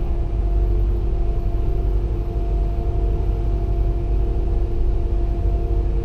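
Steady low rumble and hum of a Liebherr LHM 550 mobile harbour crane's machinery, heard from inside the operator's cab, with a few constant tones over it, as the spreader is hoisted.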